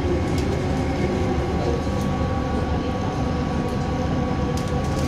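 Interior running noise of a Bombardier Innovia Metro 300 train cruising on elevated track: a steady rumble with a thin steady whine over it and a few faint clicks.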